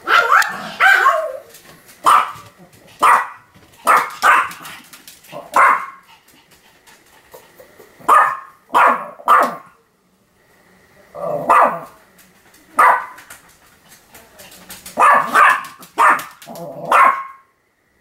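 A Pomeranian barking over and over, about fifteen barks in uneven bunches, with a pause of about two seconds midway. The barking cuts off just before the end.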